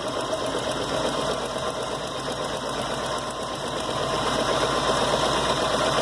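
Volkswagen Gol engine idling unevenly, limping, with a steady rapid ticking. The mechanic puts it down to the timing belt having jumped a tooth, leaving the engine out of time and pinging from pre-ignition rather than knocking a rod.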